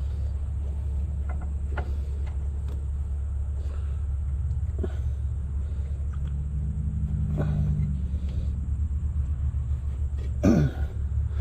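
Steady low rumble with scattered clicks and knocks from hand work on the combine's wiring, and a short, louder burst about ten seconds in.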